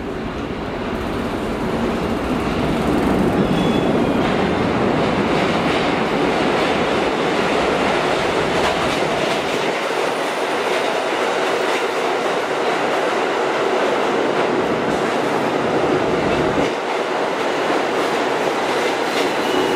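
New York City Subway Q train running on the rails, its noise building over the first few seconds and then holding steady.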